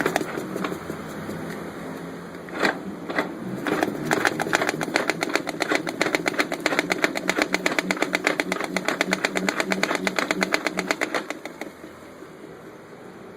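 Pedal-powered mini washing machine being worked, its mechanism clicking rapidly and evenly with a low pulsing hum underneath; the clicking stops near the end.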